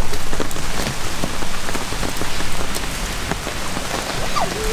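Steady rain falling on a wet wooden boardwalk and the plants around it, with many single drops ticking through the hiss.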